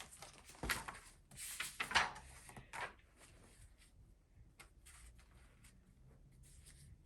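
Faint handling of a book: a light knock, then a page of the picture book rustling as it is turned, followed by a few soft taps.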